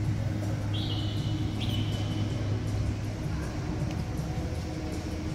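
A bird whistling two short high notes about a second in, each dipping slightly then holding, over the steady low hum of a large indoor lobby.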